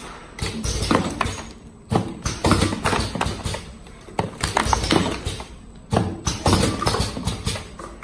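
Small empty cardboard cartons clattering against each other and a stainless steel tabletop as a hand pushes and sweeps them around, in irregular clusters of quick taps and knocks.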